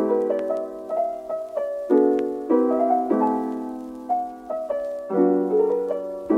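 Background piano music: gentle chords struck every second or two, each left to ring out.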